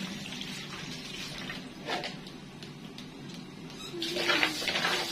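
Kitchen tap water running into a bowl as vegetables are rinsed, getting louder about four seconds in as the stream hits the bowl. A light clink about two seconds in.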